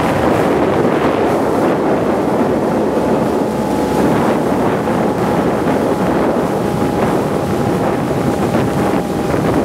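Wind rushing over the microphone with a boat motor running steadily beneath it, over the churning rush of the Bono tidal bore's breaking wave. The noise is steady throughout, with a faint thin whine from the motor.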